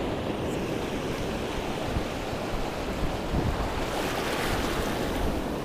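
Shallow sea water washing and lapping, with wind buffeting the microphone in a steady rush.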